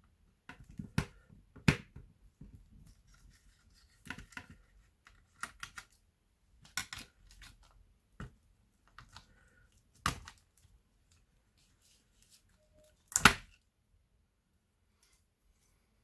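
Laptop parts being handled: scattered clicks, taps and short scrapes at irregular intervals, with one louder knock and scrape late on.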